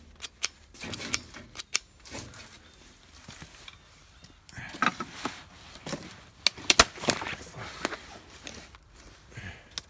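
Footsteps through dry brush: irregular crunches and sharp snaps of twigs and sticks underfoot. They ease off for a couple of seconds before a thicker run of cracks in the middle.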